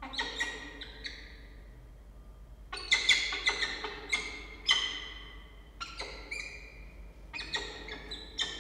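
Pair of adult peregrine falcons calling to each other at the nest scrape: clusters of short, sharp, ringing notes, loudest about three seconds in and again near five seconds.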